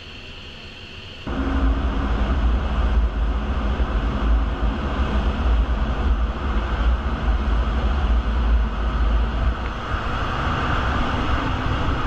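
Jet engine and airflow noise heard inside an F-15E Strike Eagle cockpit in flight: a steady, loud, low-heavy rush that starts abruptly about a second in after a quieter hum.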